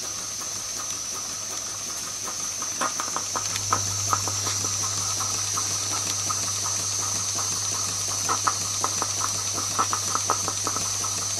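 Jensen 20G toy steam engine ticking over slowly, with a steady steam hiss and light, irregular ticks and chuffs from the cylinder. A low steady hum comes in a few seconds in.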